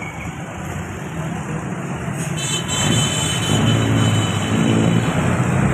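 A motor vehicle's engine running steadily amid street traffic, with a low engine hum growing louder about three seconds in.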